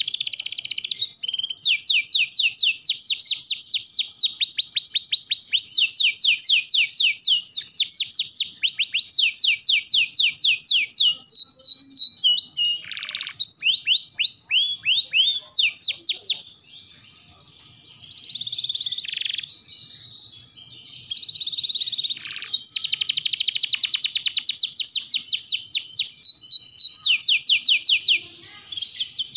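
Domestic canary singing in long, rapid trills of quickly repeated high notes. About halfway through, the song drops to a quieter stretch of scattered softer twitters, then the fast trills resume.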